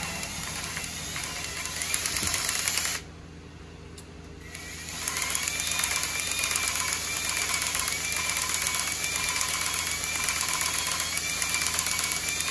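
A cordless drill drives a reciprocating valve-lapping tool, working a new valve back and forth on its seat with grinding compound. The running sound is steady and stops briefly about three seconds in. It then picks up again with a wavering whine.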